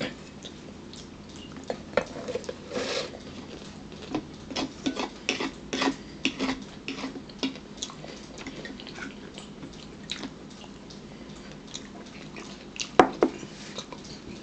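Scattered clinks and taps of cutlery and dishes during a meal, with a louder double knock near the end.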